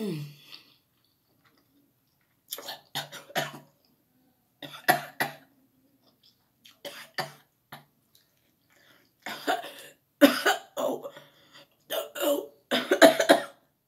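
A woman coughing and clearing her throat in short fits, several times over, the loudest near the end. She is choking on the chili heat of very spicy instant noodles.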